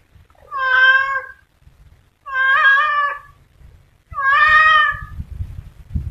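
A domestic cat meowing three times. Each meow is drawn out for about a second, with even pauses between them.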